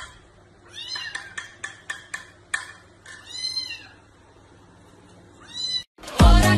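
Small kitten meowing three times, high-pitched, with light clicks between the meows. Music cuts in near the end.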